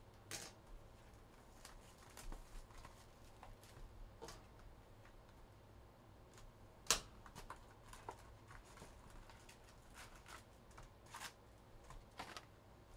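Trading cards and their packaging being handled: faint scattered rustles and clicks, with one sharper click about seven seconds in.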